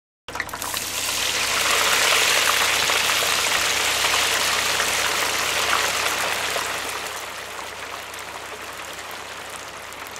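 Hot oil sizzling in a pan as okra and spices fry: a steady hiss that starts suddenly, is loudest about two seconds in and dies down through the second half.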